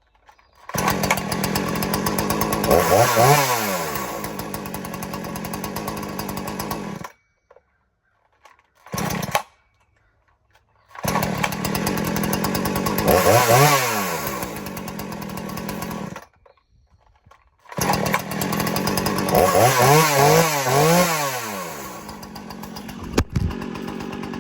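Husqvarna 240 two-stroke chainsaw running at idle and revved up and back down, in three separate runs broken by silences, with a short burst in between. Near the end it is blipped up and down several times in quick succession.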